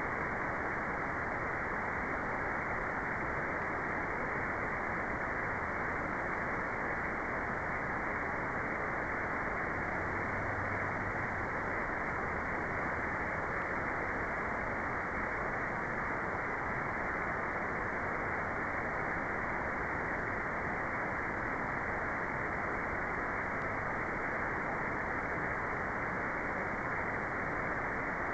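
Steady, unchanging white noise with the high end cut off, so it sounds like a dull, even rush rather than a bright hiss.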